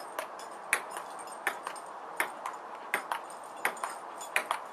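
Table-tennis ball clicking through a steady rally, the ball's bounce on the table and the paddle hit coming in quick pairs, about one pair every three-quarters of a second.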